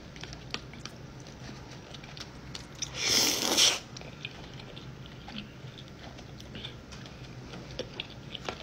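Close-up mouth sounds of eating soup dumplings: wet chewing with many small clicks, and one loud slurp about three seconds in.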